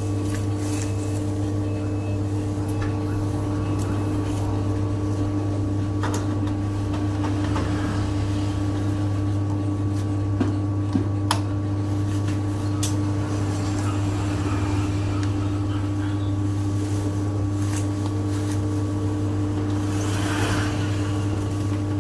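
Electric dough mixer running steadily, a constant motor hum with a few light clicks.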